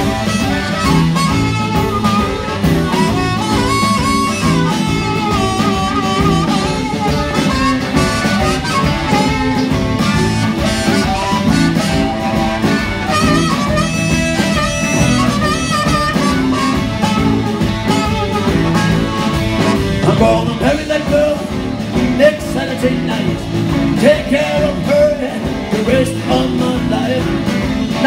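Live blues band playing an instrumental break: a harmonica solo over electric guitar, bass and drums.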